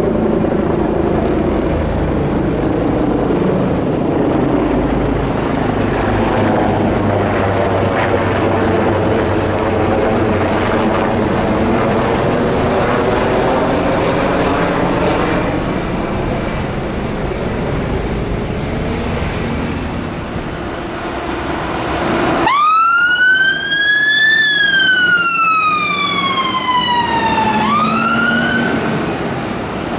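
Helicopter flying overhead, a steady rotor and engine noise. About three-quarters of the way through it cuts to a fire engine's siren wailing: a quick rise, a long slow fall, then another rise near the end.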